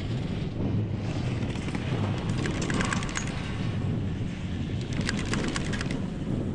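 Wind buffeting the microphone on a moving chairlift over a low steady rumble, with two short runs of rapid clicking, about two seconds in and again about five seconds in.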